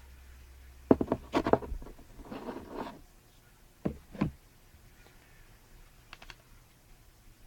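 Trading cards being handled: a quick cluster of sharp clicks and taps, a short soft scrape of cards sliding, then two separate knocks and a few faint ticks.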